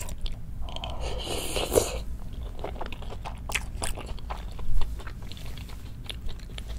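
Close-miked chewing of a spoonful of rice with spicy chicken and beef-tripe stew: many small, wet mouth clicks, with a short breathy rush about a second in.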